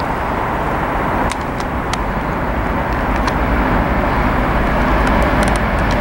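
Diesel freight locomotive running as it approaches, a steady rumble that grows a little louder, with a few light clicks.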